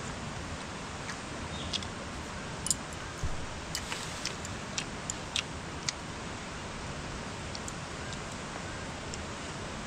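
Steady rush of a nearby stream, with a scattered run of about eight sharp clicks and taps from about two seconds in to about six seconds in.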